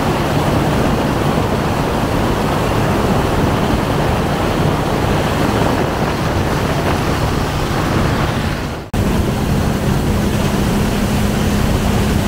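Speedboat engine running at speed with a steady hum, over the rush of river water along the hull. About nine seconds in, the sound cuts out for an instant and comes back with the engine hum a little higher.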